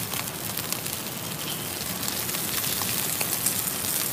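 Marbled beef steak sizzling in oil in a frying pan over a camping gas stove: a steady hiss with frequent small crackling pops.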